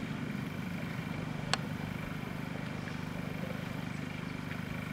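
Steady low engine drone with one sharp click about a second and a half in.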